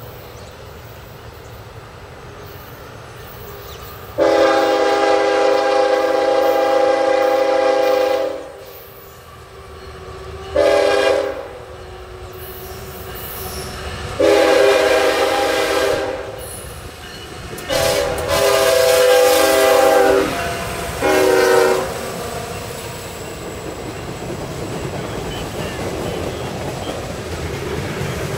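CSX diesel locomotive's K5HLL five-chime air horn sounding five blasts, long, short, long, long, short, for a grade crossing. Then the freight train's wheels and cars rumbling past, slowly growing louder.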